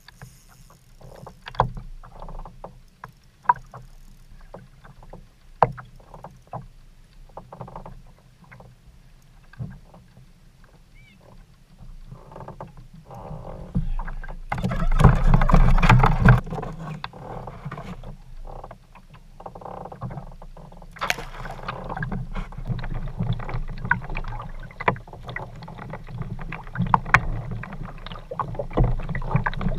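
Handling noise on a fishing kayak: scattered knocks and clatter against the hull, a loud rush of noise about halfway through, then a steady wash of water and wind with small clicks.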